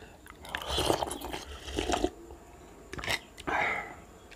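A person eating close to the microphone: several short wet chewing and slurping sounds, with a sharp click about three seconds in.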